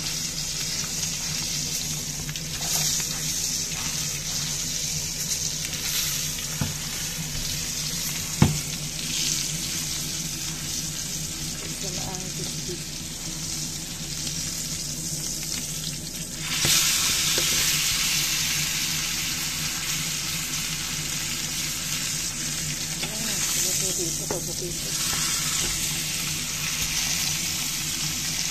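Bone-in Angus beef steak sizzling in hot fat in a frying pan, with a single sharp tap of the fork on the pan about eight seconds in. The sizzle grows suddenly louder a little past halfway, as the steak is lifted and turned with the fork.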